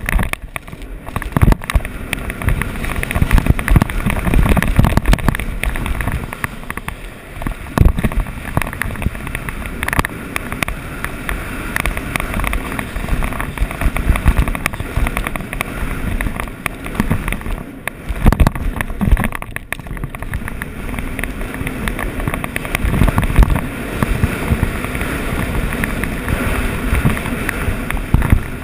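Snowboard sliding fast over packed, rutted snow: a continuous rough scraping of the board on the snow, with wind buffeting the camera's microphone and a few sharp knocks as the board hits bumps.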